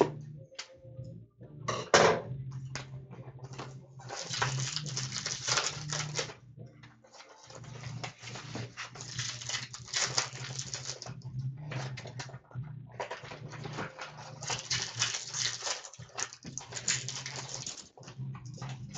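Hockey card packs being torn open and the cards handled, heard as repeated bursts of crinkling wrapper and shuffling card noise with short pauses between.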